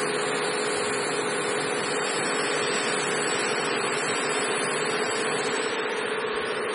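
Auger powder filling machine running with a steady mechanical hum over a constant whirring noise.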